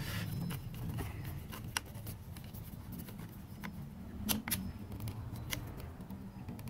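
Screwdriver turning the terminal screws of a plastic wall switch to clamp the wires, giving a few faint, scattered clicks and scrapes.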